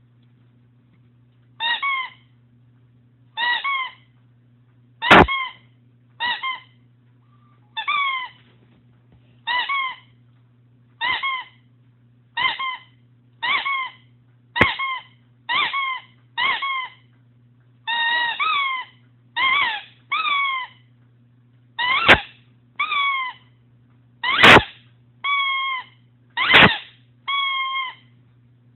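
A dog chewing a squeaky toy, making a run of short, slightly falling squeaks about once a second that come faster in the second half, with a few sharp clicks among them.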